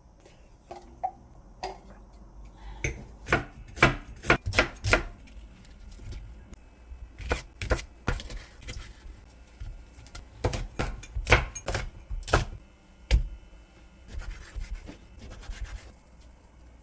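Knife chopping food on a cutting board: sharp knocks in irregular clusters of several quick strokes with short pauses between.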